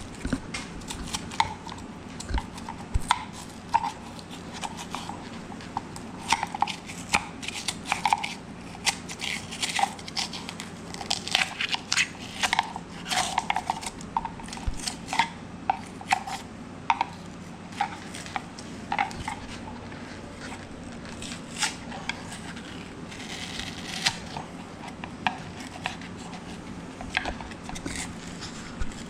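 A screwdriver scraping and prying styrofoam filler out of a hollow rifle buttstock: irregular clicks, scrapes and crunches, busier in the middle stretch.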